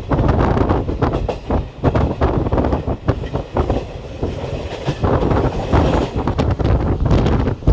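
Passenger train running at speed, heard from on board: a loud steady rumble with wheels clattering rapidly over the rail joints.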